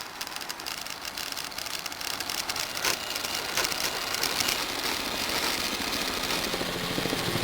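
Dense, rapid mechanical rattle, like a running motor, growing slowly louder: a sound-design layer in a sound-poetry recording.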